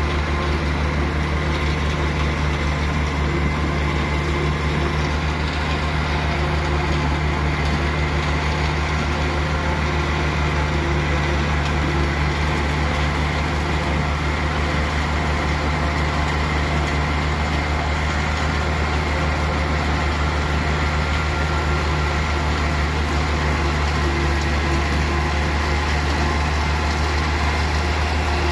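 Farm tractor engine running steadily at a constant speed, a low drone without changes in pitch.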